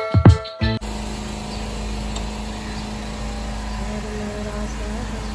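A short musical jingle ends under a second in, then a vehicle engine runs steadily while moving: an even low rumble with a constant hum.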